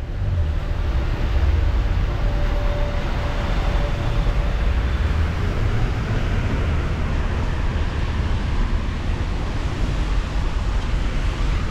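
Steady city traffic din with a deep low rumble underneath, and a faint held hum in the first few seconds.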